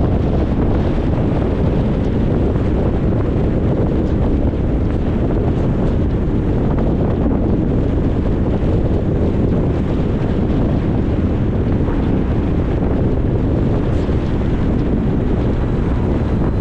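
Steady low rumble of road and wind noise from a car driving, even throughout.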